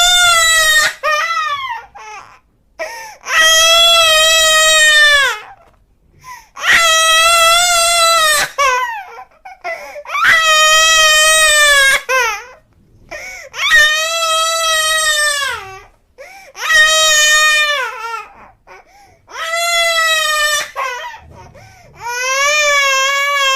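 Cartoon crying sound effect: a high-pitched voice wailing in a run of long sobs, about one every three seconds, each sob dropping in pitch at its end.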